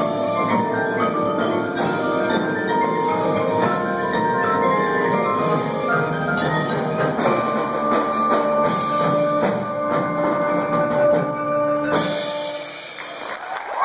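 High school percussion ensemble playing a dense passage of mallet keyboards and drums, with ringing pitched notes. The playing stops about twelve seconds in, the last notes ringing on, and a crowd begins clapping and cheering near the end.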